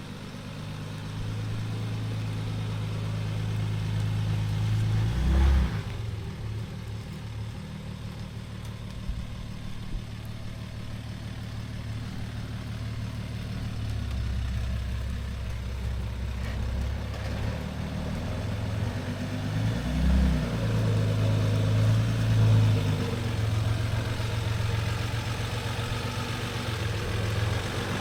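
Diesel Jeep Gladiator engine running at low speed under load while crawling up a rocky hill climb, with the revs briefly rising a couple of times.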